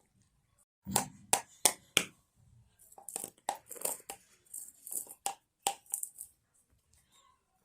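A baby shaking a container as a rattle: a few sharp knocks about a second in, then a run of lighter rattling clicks that stops about a second before the end.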